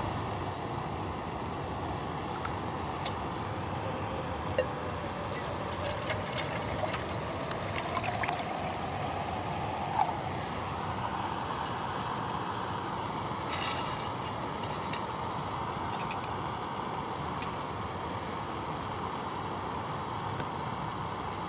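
MSR PocketRocket backpacking canister stove burning with a steady hiss, with a few light clicks and taps over it.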